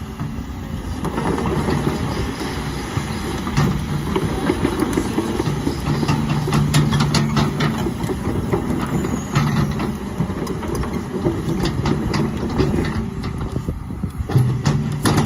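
Volvo ECR145EL excavator's diesel engine running, with a clatter of short clicks and knocks over the steady engine tone.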